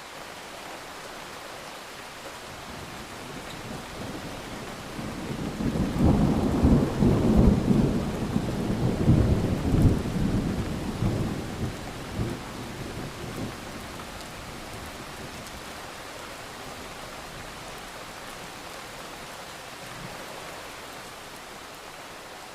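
Thunderstorm: steady rain with a long roll of thunder. The thunder builds about four seconds in, is loudest for several seconds with uneven peaks, then rumbles away, leaving the rain.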